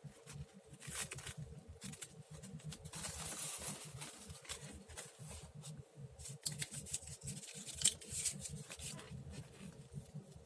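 Scissors snipping through paper in a series of short cuts, with paper rustling as it is handled.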